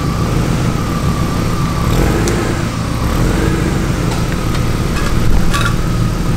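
BMW E36's engine running steadily at low speed as the car backs slowly out, with a couple of light clicks.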